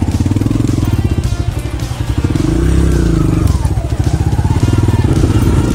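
Small motorcycle engine running at low speed on a muddy trail, the throttle blipped so the pitch rises and falls back about halfway through.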